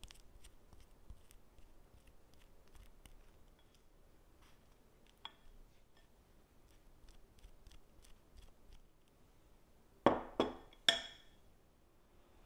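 Soft scraping and small clicks of a spoon packing cream cheese filling into a hollowed baguette, then three sharp ringing knocks in quick succession about ten seconds in.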